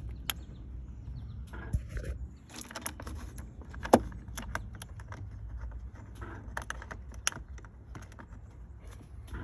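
Battery cable clamp being fitted to a battery post and its bolt turned by hand: scattered small metallic clicks and clinks, the sharpest about four seconds in.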